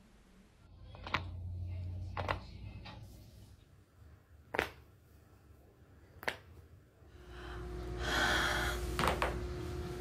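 Neck joints cracking as the head is twisted by pushing on the chin: about five sharp single pops, a second or two apart, over a faint low hum.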